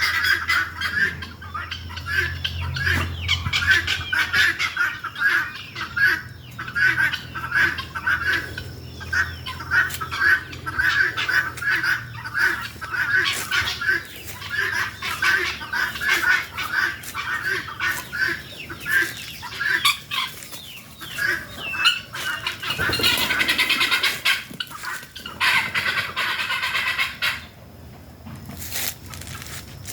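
Helmeted guineafowl calling: a steady run of short, harsh, repeated calls, about two a second, with a louder stretch of several birds calling together a little past the two-thirds mark.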